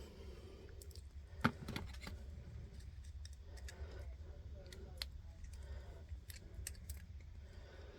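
Small metal clicks and scrapes of an Apecs XS 1 Star lock cylinder and its parts being handled and worked apart by hand, a few scattered sharp ticks over a low steady hum.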